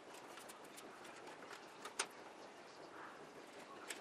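Light handling noises of small plastic parts on a foam RC model's tail, with a few small clicks and one sharp click about two seconds in, over a faint hiss.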